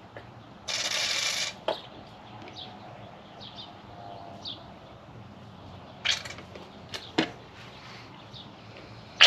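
Motor oil being poured from a bottle into a portable generator's oil fill: short gushes and glugs as air enters the bottle, the loudest about a second in, with a couple of sharp handling clicks later on.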